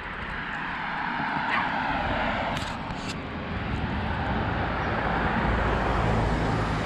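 Road traffic passing: a car's noise swells about a second in and fades, and a low rumble builds near the end.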